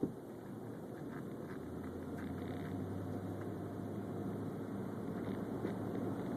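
Car driving, heard from inside: steady road and engine noise with a low hum that comes in about two seconds in and grows slowly louder. A single short knock at the very start.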